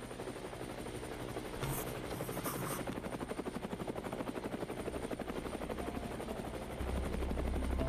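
Light helicopter on the ground with its rotor turning: a fast, even rotor chop over a thin, steady high whine.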